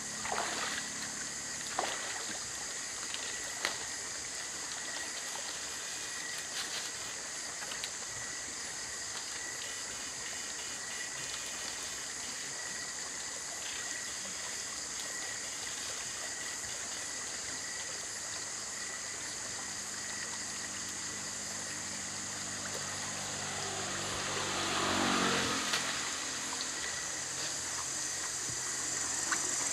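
Shallow stream water running and trickling, under a steady high-pitched chirring of night insects. A few soft knocks come in the first few seconds, and a louder swell of noise rises and fades about 25 seconds in.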